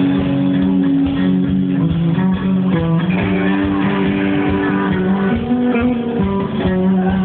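Live band music, led by guitar, with held notes over a steady beat, heard through a low-quality phone recording that cuts off the high end.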